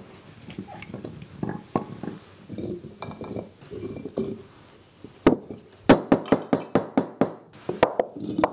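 Firm cured olives dropped by hand into large glass jars, knocking against the glass and against each other. Soft scattered knocks at first, then from about five seconds in a quick run of sharp clinks, several a second, as handfuls go in.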